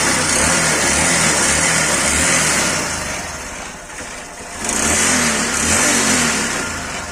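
Honda Dream Yuga's small single-cylinder four-stroke engine running fast, easing back about three seconds in, then revved up again before dropping off near the end. The mechanic presents this as the bike's connecting-rod noise.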